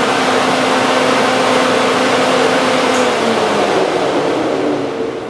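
Flex-a-lite Black Magic 188 electric radiator cooling fan running at full speed, a loud rush of air with a steady hum. About three seconds in it begins winding down, its hum falling in pitch and the rush fading.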